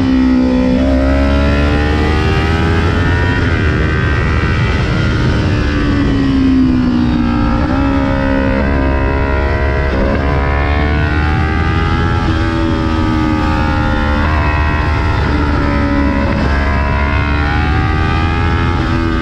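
2020 Kawasaki Ninja 400's parallel-twin engine running through a string of bends, its revs repeatedly climbing on the throttle and winding down under engine braking. A steady low wind rumble runs underneath.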